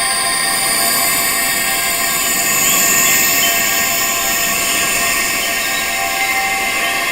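Wind chimes tuned to tinnitus frequencies, many tones ringing together in a steady wash with no separate strikes, over a high-pitched hiss whose pitch drifts slowly downward.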